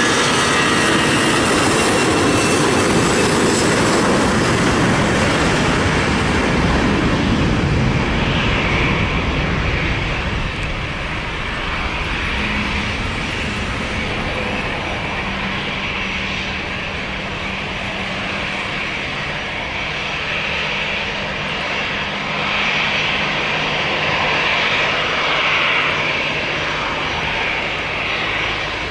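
Airbus A320 twin jet engines at takeoff thrust during the takeoff roll and climb-out. The sound is loudest for the first ten seconds or so, then eases slightly as the aircraft pulls away and lifts off, with a steady hum underneath.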